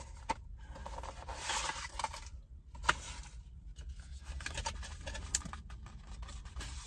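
Small cardboard and paper packaging of drone accessories being handled and opened: rustling, scraping and light clicks, with a sharper click about three seconds in, over a low steady hum.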